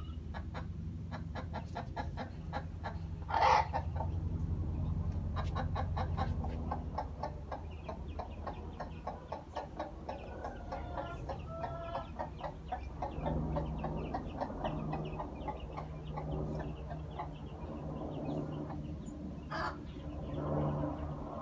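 Mother hen with chicks clucking in quick, short clucks, about five a second at first and more spaced out later, with one louder sharp burst about three and a half seconds in. A low steady hum runs underneath.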